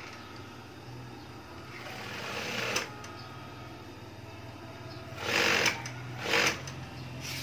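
A machine running in short spells over a steady low hum: one run swells up and cuts off about three seconds in, then two shorter, louder runs follow near the end.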